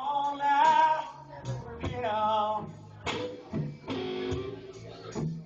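Live band music: a guitar playing a lead line of bent, wavering notes over strummed guitar.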